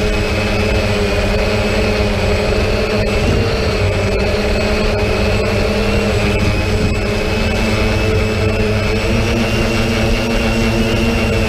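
Drone motors and propellers running steadily in flight: an even, high whine over several steady droning tones, with a rumble of wind underneath.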